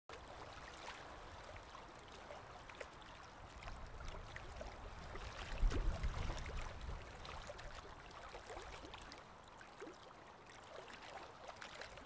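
Swimming-pool water lapping and trickling in a steady low wash that swells briefly about halfway through.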